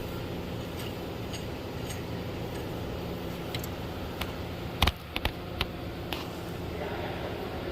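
A few sharp metal clicks and clinks, bunched a little past halfway, from hand tools and a draw-through pulley installer being fitted on a power steering pump shaft, over a steady low hum.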